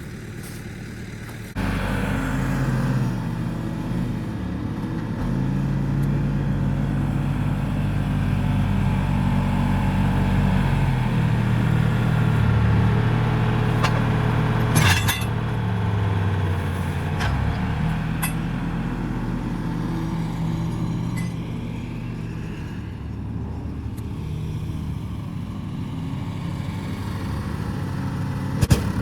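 A vehicle engine running, its pitch drifting up and down with engine speed; it gets louder about a second and a half in. There are sharp clinks about halfway through and near the end.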